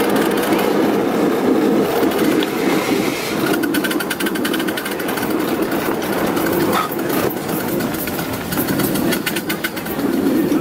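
A 5-inch gauge 0-6-2 Metre Maid (Sweet Pea type) live steam locomotive running along the track, with a steady rumble and a rapid, even beat from its exhaust and wheels.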